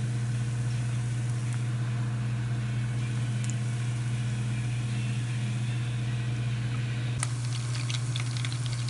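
Tuna spring rolls frying in hot oil in a pan, a steady sizzle under a constant low hum. About seven seconds in there is a sharp click, followed by a spell of crackling from the oil.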